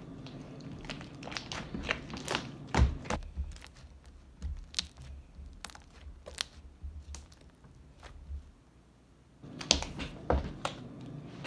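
Glitter slime being squeezed, folded and stretched by hand, giving many sharp little clicks and pops. The loudest pop comes about three seconds in, with a quieter lull a little past the middle.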